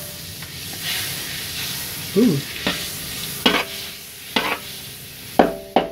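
Margarine and cooking oil sizzling in a metal wok as the margarine melts, with a spatula scraping and clinking against the wok several times as it is stirred.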